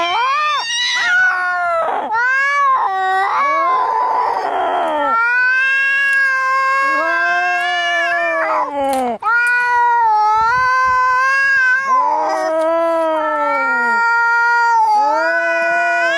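Cats caterwauling in a fight: long, drawn-out yowls that rise and fall in pitch, with a harsh noisy burst around four seconds in.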